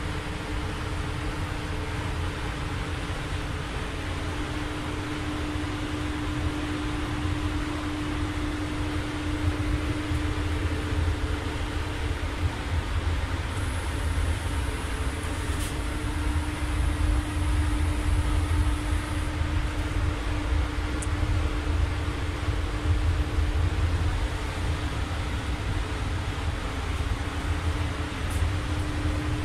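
Steady rush of a paint spray booth's ventilation with a low fan hum, as a spray gun hisses out clear coat. A faint high whistle comes in for several seconds in the middle.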